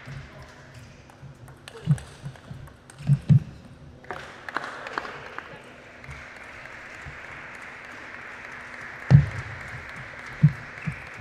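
Table tennis ball knocking on the table and bats during a rally, then scattered applause from a sparse crowd in a large hall after the point, with knocks from the next rally starting near the end.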